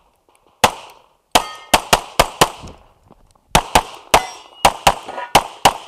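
Pistol firing in rapid practical-shooting strings: a single shot, then a quick string of about six shots, a pause of about a second, then another fast string of about nine or ten shots. Each report is sharp with a short echo.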